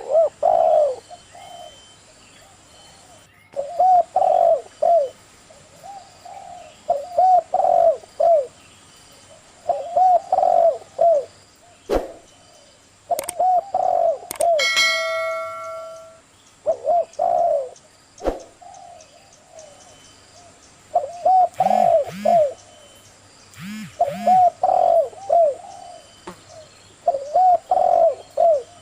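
Caged dove cooing: short phrases of three or four rising-and-falling notes, repeated every few seconds.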